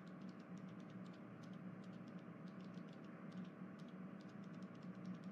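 Near silence: faint steady room tone with a low hum and a scattering of very light ticks.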